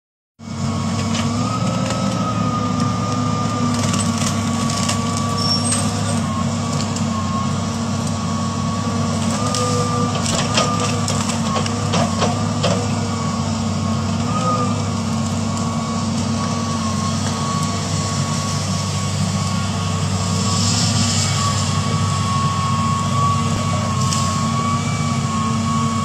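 Diesel engine of a tracked excavator running steadily under load, with a high, slightly wavering whine over the low hum. A few sharp knocks come about halfway through.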